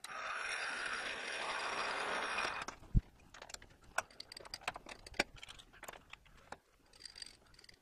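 Metal lathe spinning a rusty 2-inch steel bar while a center drill cuts into its end: a steady hiss that stops after about two and a half seconds. Then a sharp knock and a string of light metallic clicks and taps as the tailstock tooling is handled.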